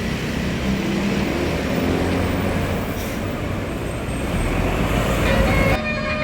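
A bus's engine and tyre noise as it passes, the engine note rising for a moment. Near the end the sound changes suddenly to a few steady higher tones.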